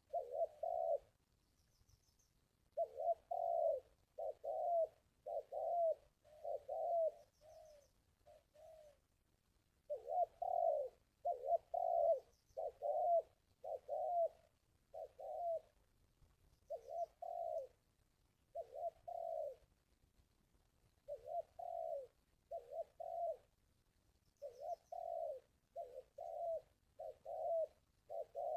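Spotted dove cooing over and over in short phrases of several coos, with pauses of about a second between phrases. It is a lure call meant to draw wild doves in for trapping.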